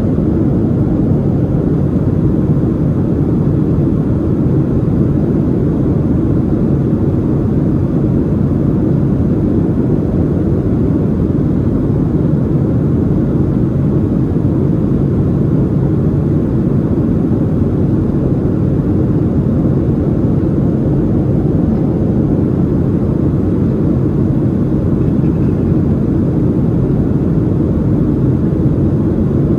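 Cabin noise inside a Boeing 737-700 on approach: a steady low rumble of airflow and the CFM56 engines, even throughout.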